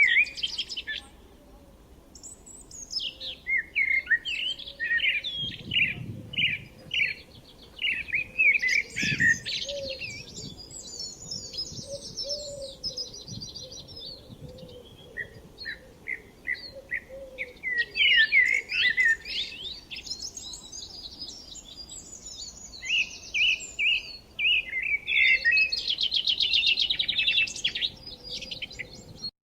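Several songbirds singing and chirping together, overlapping quick chirps and rapid trills.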